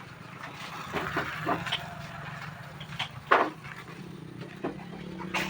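A motor running with a steady low hum, with a handful of sharp knocks and clicks over it; the loudest knock comes a little over three seconds in.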